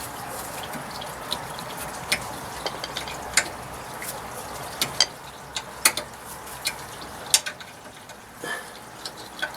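Sharp metallic clicks and clinks of a hand tool working as the rear brake caliper guide pins are unscrewed, irregularly spaced, about one or two a second.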